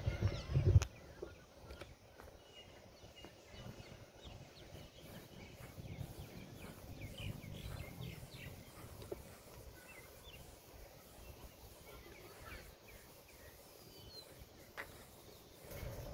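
Birds chirping, many short calls scattered over faint outdoor background noise. A brief low rumble in the first second is the loudest sound.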